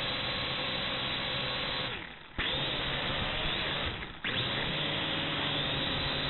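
WLToys V686G quadcopter's motors and propellers running, heard from the drone's own camera, with a steady drone and a wavering whine. The motors throttle down twice, about two and four seconds in, and snap back up each time as the drone corrects against the wind and tips.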